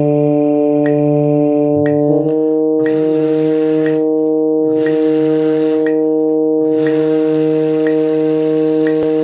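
A steady, sustained drone note from a tuner app, stepping to a new note about two seconds in, with a metronome ticking about once a second. Brass-instrument mouthpiece buzzing joins the drone at the start.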